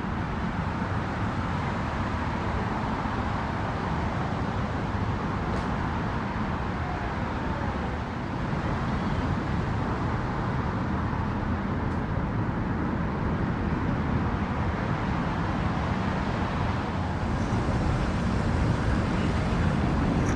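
Steady motor-engine rumble with outdoor background noise, growing a little louder about halfway through.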